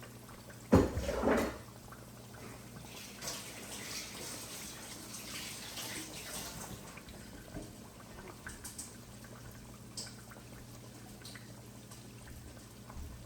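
Kitchen tap running while hands are washed, water splashing in the sink, with a sharp knock about a second in.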